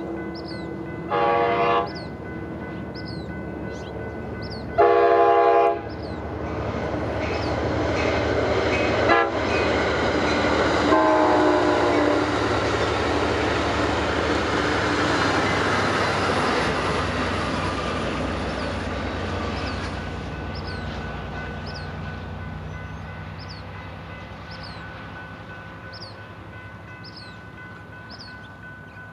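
Train horn sounding a short blast and then a longer one as a train nears a grade crossing, followed by the train passing: a rising rush of wheels and engine noise that peaks mid-way and slowly fades. The crossing bell rings steadily throughout.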